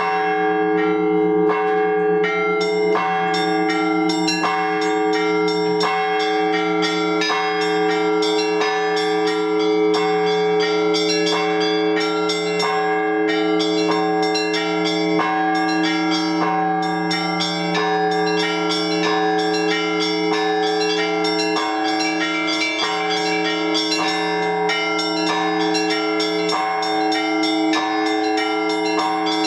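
Orthodox church bells ringing a peal to call the faithful to the liturgy. Several bells sound together: deep, sustained tones from the larger bells hum beneath quick, even strikes of the smaller bells, about two strikes a second.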